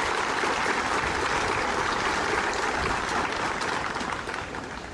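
A crowd applauding: dense, steady clapping that dies down near the end.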